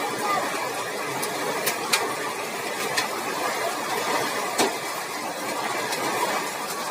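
Heavy hailstorm: a steady rush of falling rain and hail, with a few sharp cracks of hailstones striking a hard surface, the loudest about two seconds in and again past four and a half seconds.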